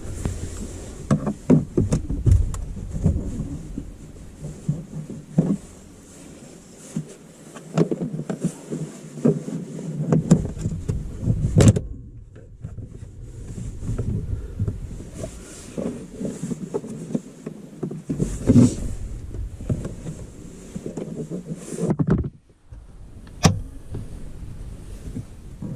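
Dash cam power wire being fed and pushed behind plastic car interior trim: irregular rustling and scraping with many sharp plastic clicks and knocks, easing off briefly twice.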